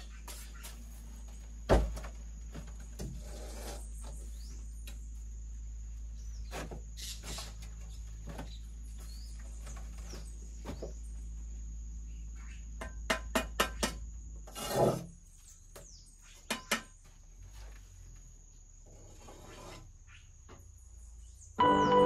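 Bricklaying: a steel trowel knocking and scraping on clay bricks and mortar, with scattered sharp taps and a quick run of four knocks followed by a heavier one about two-thirds of the way through. A steady high insect buzz runs underneath, and music comes in near the end.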